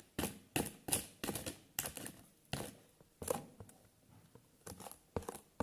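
Irregular short crinkling and rustling handling noises, a quick run of them in the first half that thins out toward the end.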